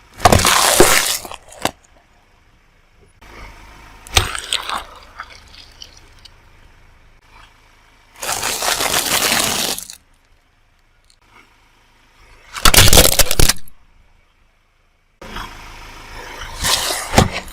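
A series of separate cracking, crushing noises as objects are run over and broken under a car tyre, five in all, each a second or two long with quiet gaps between.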